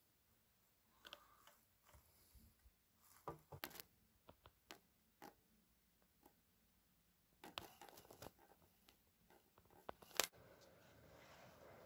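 Near silence: quiet room tone broken by scattered small clicks and taps, the sharpest a single click about ten seconds in.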